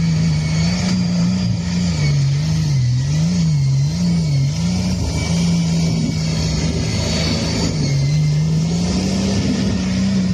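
Offroad vehicle engine running under load, its pitch rising and falling again and again as the throttle is worked.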